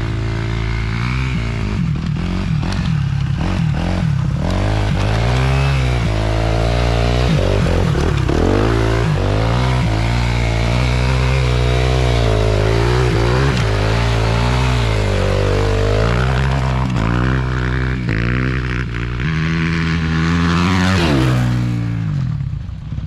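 Small off-road engine revving up and down over and over while riding, then swelling to its loudest with a rising pitch and dropping off sharply as it passes close by near the end.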